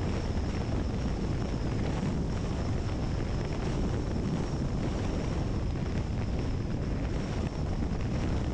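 Steady wind rushing over a camera mounted outside a vehicle driving at road speed, mixed with low road and engine rumble, with a faint high steady whine.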